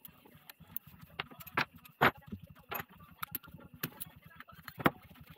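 Sharp metallic clicks and knocks of tools and parts being handled while a truck air compressor is taken apart, the loudest about 2 s in and near the end, over a low, even, rapid pulsing.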